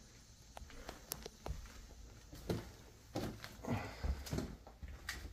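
Footsteps across a floor littered with loose tiles and debris: a few light clicks and taps, then several heavier, irregular steps in the second half.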